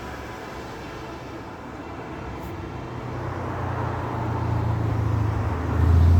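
Low engine-and-road rumble of a motor vehicle drawing closer, growing steadily louder over several seconds and peaking near the end.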